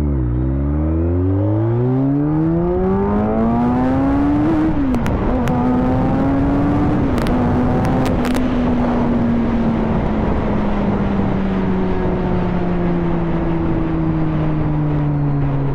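A BMW 1200 cc sport motorcycle engine accelerating hard, its pitch climbing steeply for about four seconds, then shifting up twice and settling into a steady cruise with the revs slowly easing off. Heavy wind rush runs underneath.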